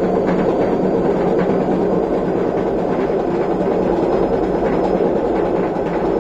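Washing machine drum turning on a destroyed drum bearing, giving a loud, steady rumble, the sign of a failed bearing.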